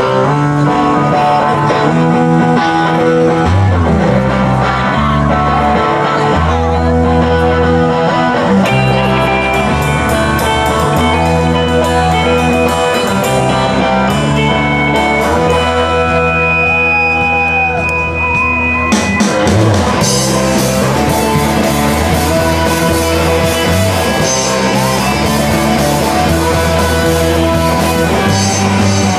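Live rock band playing an instrumental passage: electric bass and electric guitars over drums. About two-thirds of the way through, the cymbals come in and the sound fills out.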